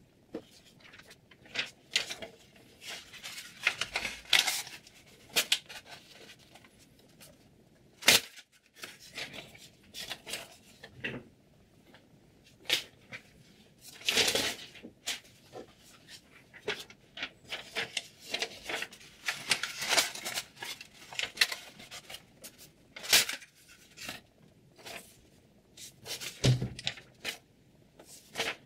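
Paper slicing against a freshly sharpened VG10 chef knife edge, testing its sharpness: irregular rustles, short cutting and tearing sounds, and handling clicks, with one longer tearing stroke about halfway through.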